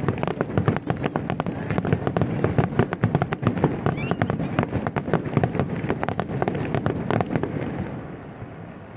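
Aerial fireworks going off in a rapid, dense barrage of bangs and crackles, several a second, over a low rolling rumble. The bursts thin out and fade away near the end.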